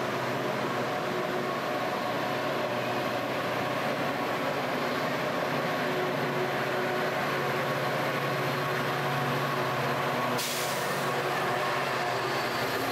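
Metra diesel commuter train running at a station, a steady engine drone over the even hiss of heavy rain. A short sharp hiss cuts in about ten seconds in.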